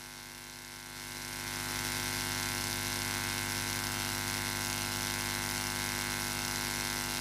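A steady electronic hum from the sound system, made of several held tones, swelling about a second in and then holding level.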